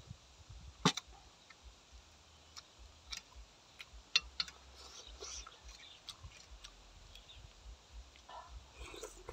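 A metal spoon clinks sharply against a stainless steel plate twice, about a second in and again about four seconds in, with small ticks and the soft wet sounds of chewing and lip-smacking in between.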